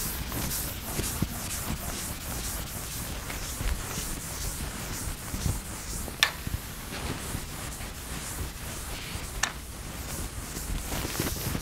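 Chalkboard eraser rubbing across a blackboard in repeated wiping strokes, with two sharp clicks, about six seconds and nine and a half seconds in.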